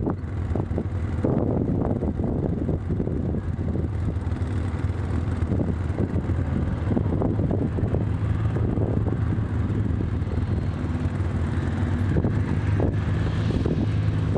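Wind buffeting the microphone in irregular gusts over a steady low engine hum from a vehicle on a dirt road; the hum grows a little stronger near the end.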